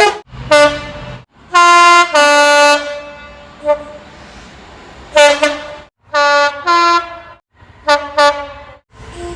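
Train air horns in a quick series of separate clips, each cut off abruptly. They sound short toots and a longer two-tone blast, a high note then a lower one, about one and a half seconds in.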